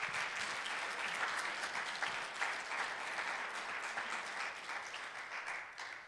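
Congregation applauding, a dense patter of hand clapping that dies away near the end.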